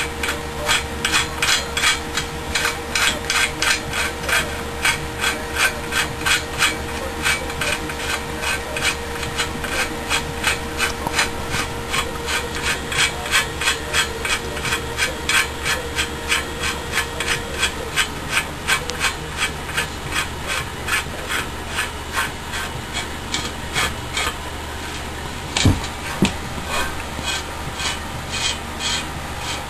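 Rhythmic scraping strokes, about two a second, of a headset nut being screwed down onto a BMX bike's threaded fork, metal rubbing on metal; the strokes thin out over the last several seconds, with a single sharper knock near the end.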